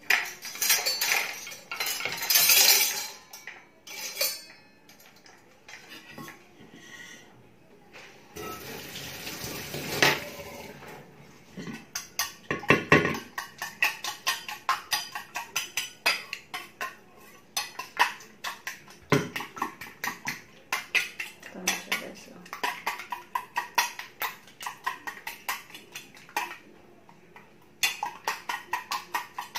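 Eggs being beaten by hand in a bowl: a quick, steady run of clinks as the utensil strikes the bowl, several a second. It is preceded by a few seconds of dish clatter and noise.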